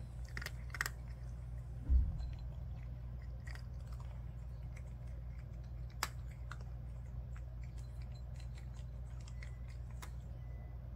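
Cat chewing dry kibble: irregular small crunches and clicks over a steady low hum, with one low thump about two seconds in.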